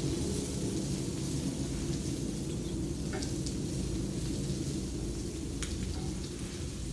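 Bacon, diced breakfast sausage and hash browns sizzling steadily on a Blackstone flat-top griddle. A metal spatula clicks a few times against the griddle as the sausage is pushed around.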